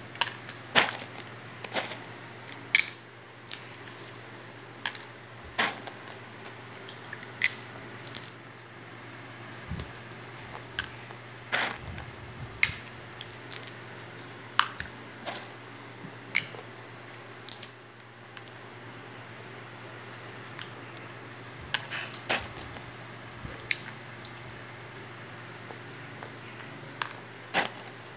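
Irregular sharp clicks and taps of a child eating loose corn kernels from a plate, over a low steady hum.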